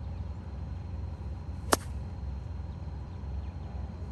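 A 54-degree wedge striking a golf ball on a full approach shot: one sharp click a little under two seconds in.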